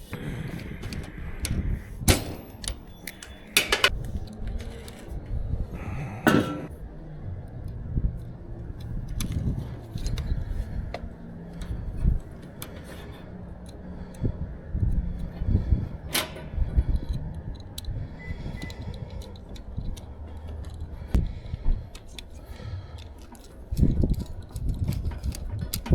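Irregular clicks, knocks and light rattles of hand tools and small parts being handled while a contactor is swapped out in an air-conditioning condenser, with a few sharper knocks standing out.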